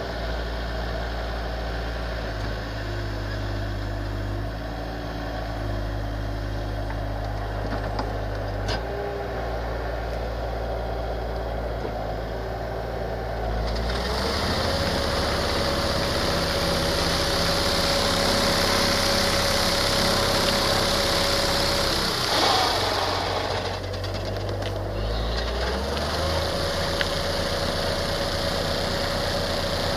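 Bobcat skid-steer loader running with an Agromelca VM1 front-mounted olive harvester. About 14 seconds in the shaker starts with a rising whine and runs louder and steady with a hiss on top. It stops a little after 22 seconds and starts up again about 26 seconds in.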